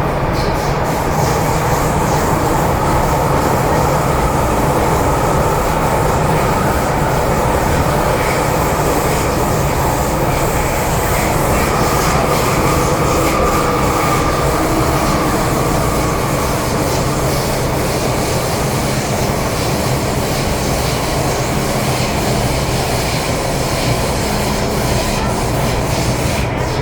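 MTR M-Train electric metro car running on the line, heard from inside the car: a steady rumble of wheels on rail with a faint whine running through it.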